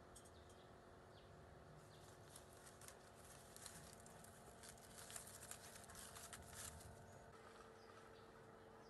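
Near silence: faint background hum with a scatter of faint light clicks for a few seconds in the middle.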